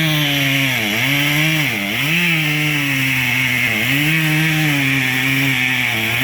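Chainsaw running at high revs while cutting. Its pitch dips briefly several times as the engine bogs under load in the wood, then climbs back.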